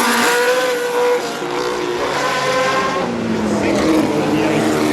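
Historic Formula 1 racing cars' engines at high revs. Near the start one car's pitch sweeps down as it passes, then several engines overlap with their pitch climbing as they accelerate.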